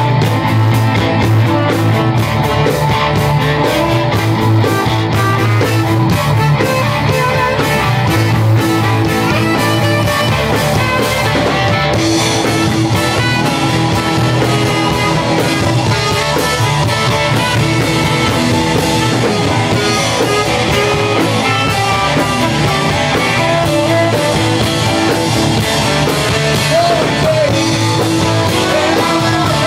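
Live rock band playing, with electric guitars and a saxophone, at a steady loud level.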